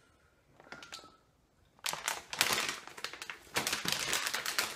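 Plastic candy bag of marshmallow eggs crinkling and rustling as it is pulled open, starting about two seconds in after a quiet stretch.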